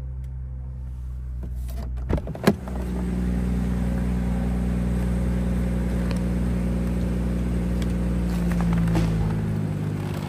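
The BMW 740i's turbocharged 3.0-litre inline-six idles steadily as a low hum heard inside the cabin. Two sharp clicks come about two seconds in.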